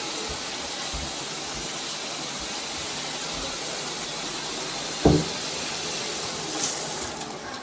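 Water spraying steadily from a shower head, a constant hiss. A brief sharp sound cuts in about five seconds in.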